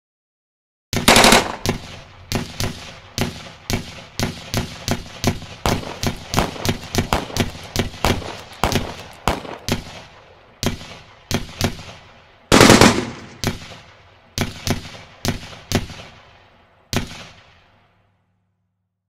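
Gunfire sound effect: a quick burst of rapid shots about a second in, then single shots at an uneven pace, a second rapid burst past the middle, a few more shots and a last one near the end, each shot with a short ringing tail.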